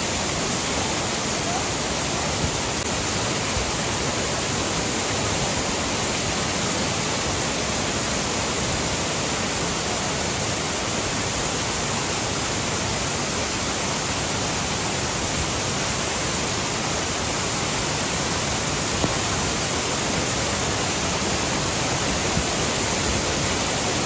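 Waterfall pouring over and splashing onto boulders, heard close up from within the falling water: a steady, even rush.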